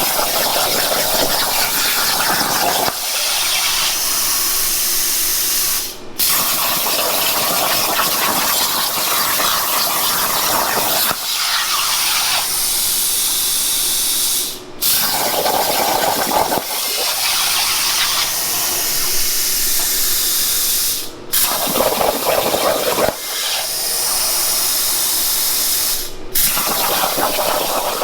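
Plasma torch on a CNC plasma table cutting aluminum sheet: a loud, steady hiss of the arc and its air stream, cutting off and starting again abruptly about five times.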